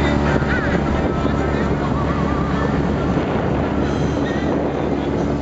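Polaris RZR side-by-side's engine running steadily as it drives a gravel road, with wind buffeting the microphone.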